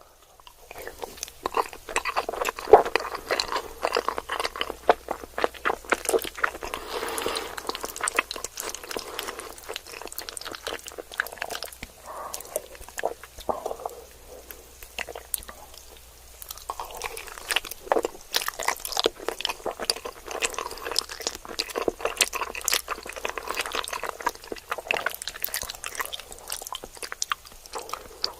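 Close-miked eating sounds: a stream of wet chewing, biting and crunching clicks, from macaroni in melted cheese and crunchy Cheetos.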